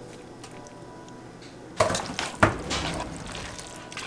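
A utensil stirring fettuccine in creamy Alfredo sauce in a metal pot. Two sharp clanks against the pot come about two seconds in, followed by scraping and squishing as the pasta is turned.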